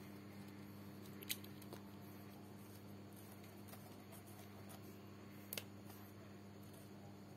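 Small sharp clicks of a smartphone's plastic frame and parts being handled by hand, one about a second in and a quick double click later, over a low steady hum.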